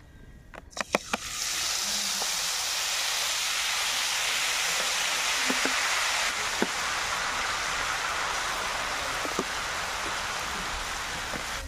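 Gram-flour (besan) batter sizzling loudly in hot oil in a kadai as it is squeezed in from a bottle, a steady hiss that starts about a second in after a few light clicks.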